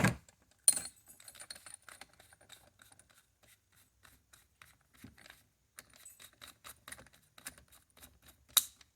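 Light clicks and small metallic taps as a hydraulic valve spool is handled and fitted into a drill chuck, with a sharper click near the start and another near the end.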